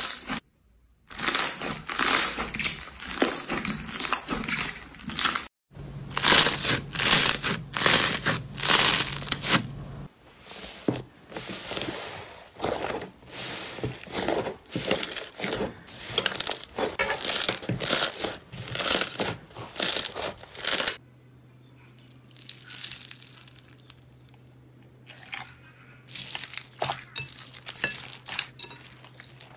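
Hands squeezing and kneading thick slime, some of it packed with beads and foam beads, making a run of short, noisy squishes about two a second. The texture of the sound changes abruptly several times, and the last several seconds are quieter and sparser.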